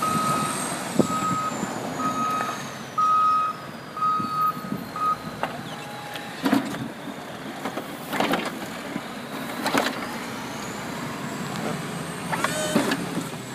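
Snowplow truck reversing, its backup alarm giving a steady series of single-pitch beeps that stop about five seconds in, over the truck's engine running.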